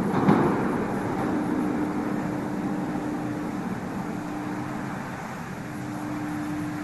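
Moscow metro train of the 81-765 'Moskva' type running, a steady rumble that slowly quietens. A single knock comes just after the start, and a steady electric hum drops out and returns a few times.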